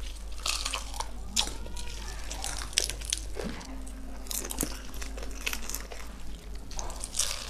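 Crispy fried chicken and fuchka shells crunching as they are bitten and chewed, a run of separate crunches with wet chewing in between.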